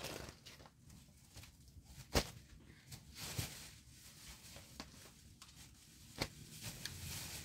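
Thin flatbread sheets rustling and crackling as they are lifted, turned and laid on the stack, with a few sharp taps, the clearest about two seconds in and again near the end.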